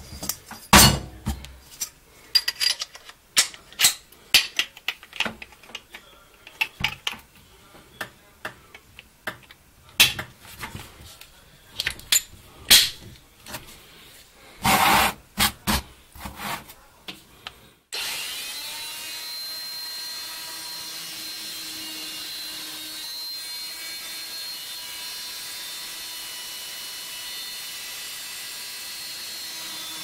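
Scattered clicks and knocks as the attachments of a Parkside PMFW 310 C2 oscillating multitool are handled and swapped. About two-thirds of the way through, the 310 W multitool is switched on and runs steadily without load, with a round segment saw blade fitted and an even whine.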